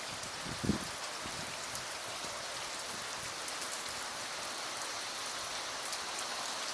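Steady rain falling, with faint scattered drop ticks and a single short low thud a little under a second in.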